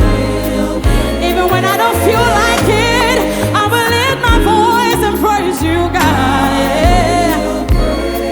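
Live gospel worship song: vocalists sing with heavy vibrato over a full band, with a bass line moving under it and steady drums.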